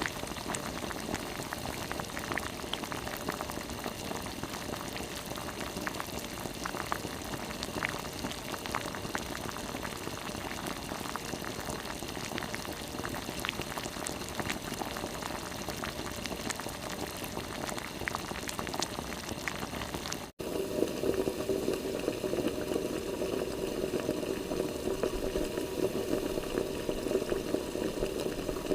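Liquid bubbling: a steady, dense bubbling noise with faint scattered crackles. About twenty seconds in it cuts abruptly to a second, fuller bubbling sound.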